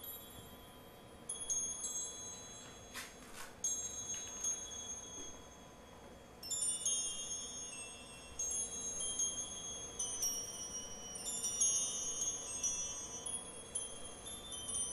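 Chimes tinkling: irregular clusters of high, overlapping ringing tones, sparse at first and denser from about halfway through, with a brief hiss about three seconds in.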